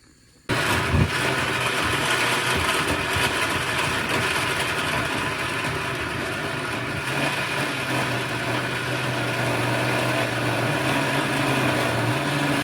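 Countertop blender running steadily, blending chopped celery with a little water into juice. It starts suddenly about half a second in and cuts off just before the end.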